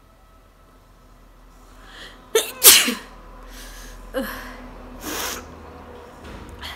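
A person sneezing, the sneezes set off by tickling the inside of the nose with a cotton bud. The loudest sneeze comes about two and a half seconds in with a sharp intake just before it. A smaller sneeze follows about a second and a half later, then a short breathy burst.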